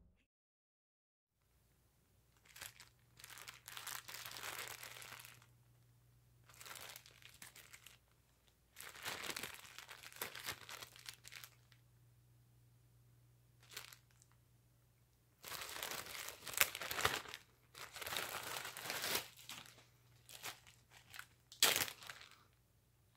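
Clear plastic bag holding pipe tobacco crinkling as it is handled and opened, in several separate bouts of rustling with short pauses, loudest in the second half.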